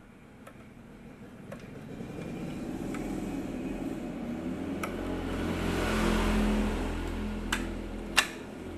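A passing vehicle, its noise swelling to a peak about six seconds in and then fading, over a steady low hum. Several sharp plastic clicks from wiring connectors being handled and pushed into a copier's controller board, the loudest near the end.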